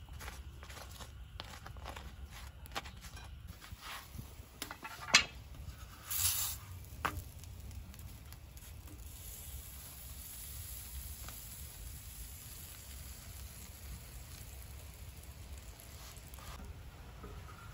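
A wooden spatula tapping and scraping against flatbreads and metal, with a sharp knock about five seconds in and a brief rustle just after. Then comes a steady faint hiss over a low hum, from the iron sac griddle heated by a gas burner.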